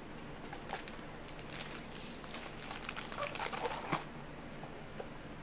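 Soft crinkling and rustling of plastic packaging as it is handled, thickest in the middle, with a sharp click about four seconds in.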